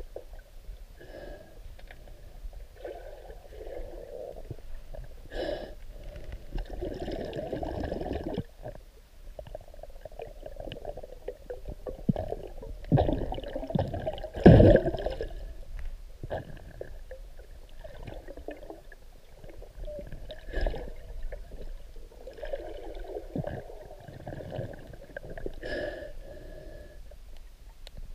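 Muffled underwater sloshing and gurgling picked up by a submerged camera as a snorkeler swims, in irregular surges every couple of seconds, with a few sharp knocks about five, fourteen and a half, twenty and a half and twenty-six seconds in.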